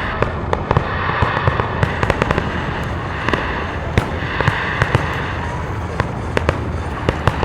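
Fireworks display: many sharp cracks and bangs at uneven, closely spaced intervals over a continuous rumble of distant shell bursts.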